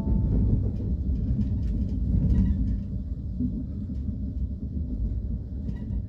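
Low, steady rumble of a moving vehicle heard from inside its cabin.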